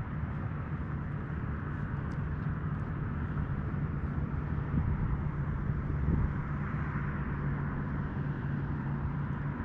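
A steady low engine hum at one unchanging pitch from a distant motor, over a constant wash of water noise.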